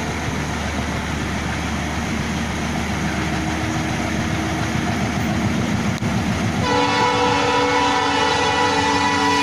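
Express train running with a steady rolling rumble. About two-thirds of the way through, its locomotive horn starts and is held as one long steady blast.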